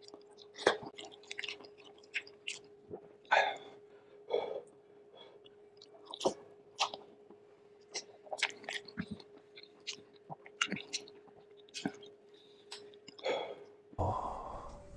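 Close-up eating sounds of a person chewing beef shank soup: wet chewing and lip smacks as a string of short clicks at an uneven pace, over a faint steady hum.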